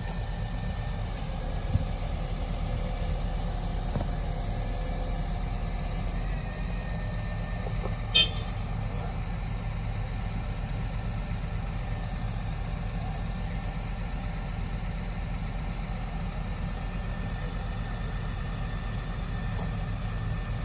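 Heavy diesel engine idling steadily, with a brief sharp high-pitched sound about eight seconds in.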